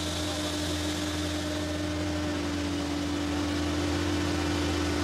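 Farm feed-mixing machinery running steadily: a continuous mechanical hum with one constant tone over a haze of noise.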